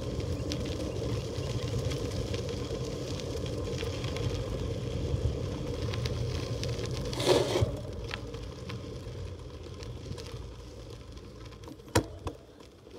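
Bicycle on Panaracer GravelKing EXT tyres rolling over a sandy dirt and gravel road: a steady low rumble with scraping and crackling of grit. There is a short sharp rattle about seven seconds in, and the rumble is quieter for the last few seconds.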